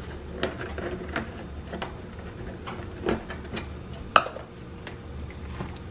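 Light clicks and taps of a plastic spatula and a plastic measuring cup against a glass mixing bowl of macaroni, with one sharper knock a little after four seconds in.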